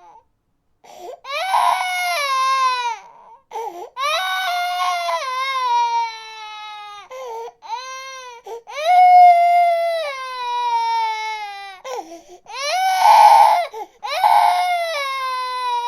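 Infant crying: a string of long wails, each sliding down in pitch, broken by short gasping breaths, with the loudest, most strained cries around nine and thirteen seconds in.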